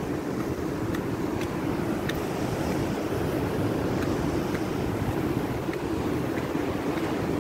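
Steady roar of surf breaking on a rocky shore, with wind on the microphone.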